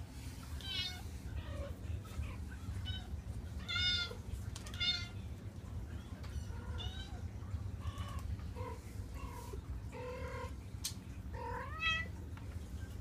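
Sphynx kittens mewing again and again in short, high-pitched calls, some rising in pitch, with the loudest calls about four, five and twelve seconds in. A low steady hum runs underneath.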